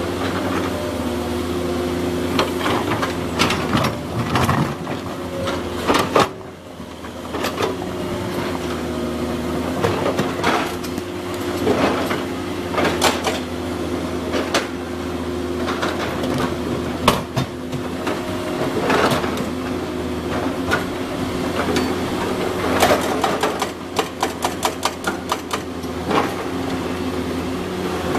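Komatsu PC200 excavator's diesel engine running steadily, dropping briefly about six seconds in, with scattered knocks and clatter from the work with limestone. Near the end comes a quick run of clicks, several a second.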